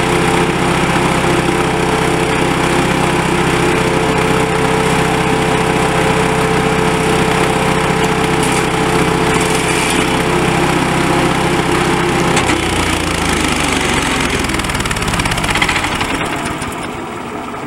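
Petrol engine of a Lumag HC1000EW wood chipper running steadily at high revs with its cutting rotor spinning. About twelve seconds in the engine note drops and the sound eases off as it is throttled back toward idle.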